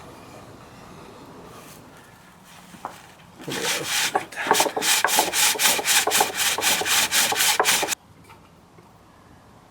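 Birch bowl worked on a foot-powered pole lathe: fast, rhythmic rasping strokes, about four to five a second, as the wood spins back and forth against the tool, starting a few seconds in and stopping abruptly near the end.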